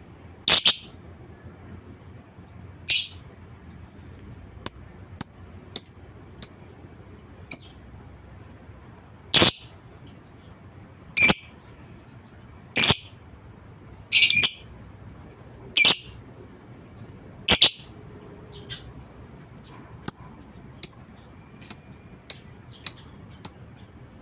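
Lovebird calling: single shrill squawks every second or two, with runs of short, sharp chirps in between. These are separate calls, not a continuous trilling ngekek.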